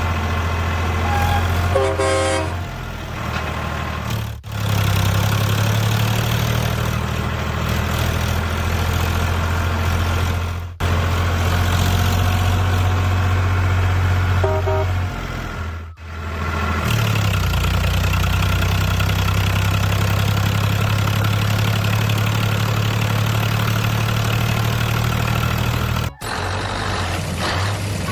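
Truck engine running steadily with a deep hum. Short horn toots come about two seconds in and again near the middle, and the sound drops out abruptly several times.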